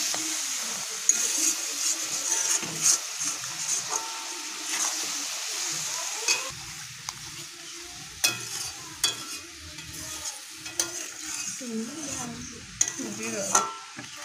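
Metal spatula stirring hog plums in a steel kadai of sizzling oil and sugared spice paste, with scrapes and clicks against the pan. The sizzle is louder in the first half and dies down after about six seconds.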